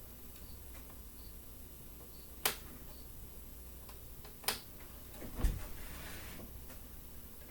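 Two sharp plastic clicks about two seconds apart, then a soft low bump with a little rustling, from small wiring connectors being worked into the Xtool D1 laser engraver's control board.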